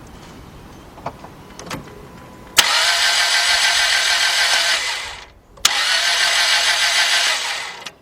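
2002 Dodge Stratus 2.4-litre twin-cam four-cylinder engine cranking on the starter without catching, in two bursts of about two and a half seconds each, each starting with a sharp click. It spins steadily with no firing, the distinct sound of an engine with no compression.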